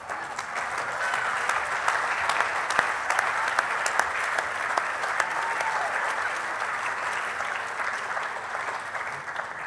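Audience applauding steadily, a dense patter of many hands clapping that eases slightly near the end.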